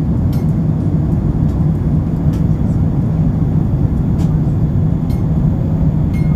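Cabin noise of a Boeing 787-10 airliner in cruise: a steady low rumble of its Rolls-Royce Trent 1000 engines and rushing airflow, heard from a window seat over the wing, with a few faint clicks.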